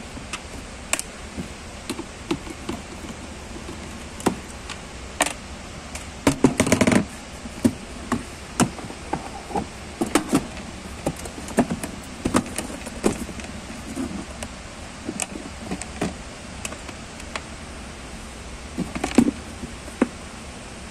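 Screwdriver and hard plastic body panels of a children's ride-on electric car being handled and fitted: irregular clicks and knocks of plastic and metal, with a quick cluster of knocks about six seconds in and another just before the end.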